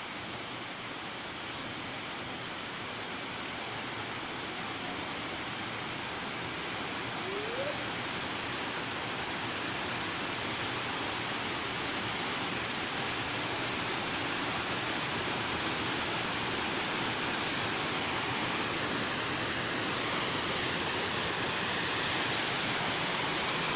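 Waterfall with a steady rush of falling water, swollen with fresh flow after the rains. It grows slowly louder.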